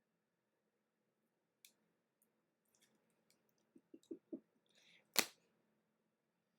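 Trading cards being handled: near silence broken by a few light taps, and one sharp click a little after five seconds in.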